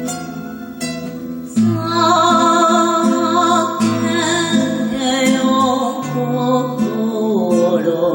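Enka music with acoustic guitar accompaniment; about one and a half seconds in, it gets louder as a wavering melody with vibrato comes in over the guitar.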